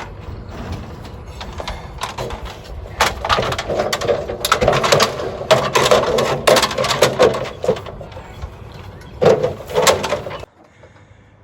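An extension ladder being extended and handled: a run of clattering knocks and clacks, with wind rumbling on the microphone. It cuts off suddenly near the end.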